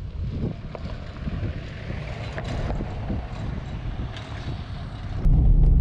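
A pickup truck drives past on a dirt road, its tyres and engine heard through gusty wind buffeting the microphone. About five seconds in, the sound switches abruptly to the louder, steady low drone of the truck heard from inside its cab.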